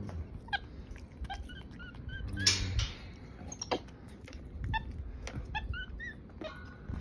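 Capuchin monkeys giving many short, high chirps and squeaks, some rising and some falling in pitch, mixed with scattered clicks. About two and a half seconds in comes a brief burst of rustling, the loudest sound.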